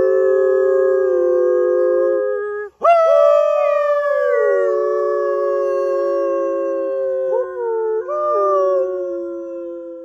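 Wolf-style howling from several voices at once, long held notes at different pitches. They break off about two and a half seconds in, then a new chorus swoops up and slowly sinks, with brief pitch breaks near the end.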